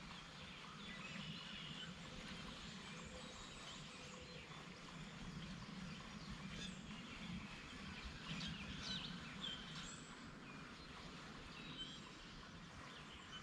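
Faint outdoor ambience with scattered bird chirps over a steady low background hum.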